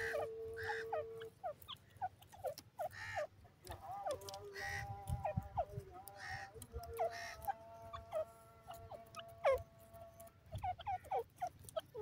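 Grey francolin (teetar) hen giving a string of short, soft calls, some sliding in pitch, with a few brief rustles in between.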